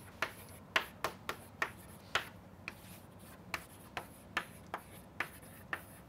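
Chalk writing on a blackboard: a dozen or so short, sharp taps and strokes at an irregular pace, about two a second, as letters are written.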